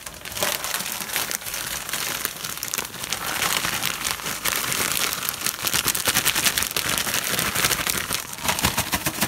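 Plastic zipper-lock freezer bag crinkling continuously as it is squeezed and kneaded by hand, working flavored drink-mix powder into the bait chunks inside.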